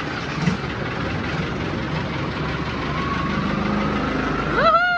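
Longtail boat engine running under way, rising gradually in pitch as it revs up over the second half. Near the end, a loud high-pitched tone cuts in, rising sharply, holding briefly, then falling.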